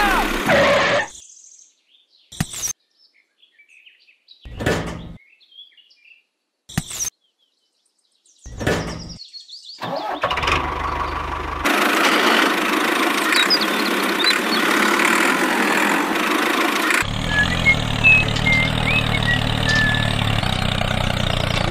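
An engine sound, heard as the tractor's: a few short bursts in near silence, then a steady running from about ten seconds in that changes to a deeper, even engine note about seven seconds later. Birds chirp over it near the end.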